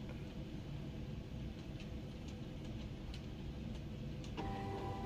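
Silhouette Cameo 3 cutting machine running: a low hum with scattered light ticks, then a steady motor whine starts about four seconds in.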